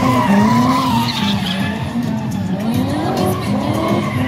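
Drift car's engine revving up and down repeatedly at high revs while its rear tyres squeal and skid through a sustained slide.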